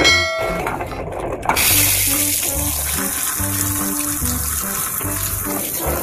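Water spray hissing steadily, starting about one and a half seconds in, over background music with a simple stepped melody.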